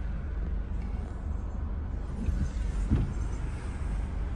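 Steady low rumble in a car's cabin, with a couple of short thumps about two and three seconds in.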